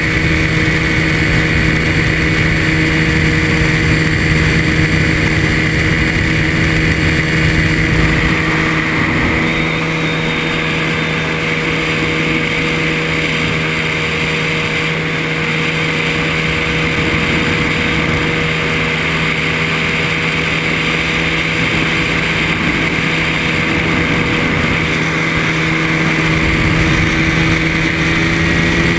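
Ultralight trike's engine and propeller running steadily in flight, with wind rumbling over the microphone; the wind rumble eases about nine seconds in and returns near the end.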